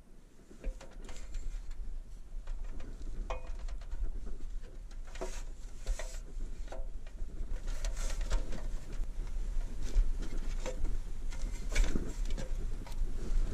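Boots and hands on a metal ladder during a climb down: irregular knocks and clanks on the rungs and rails, with a few short squeaks, over a steady low rumble.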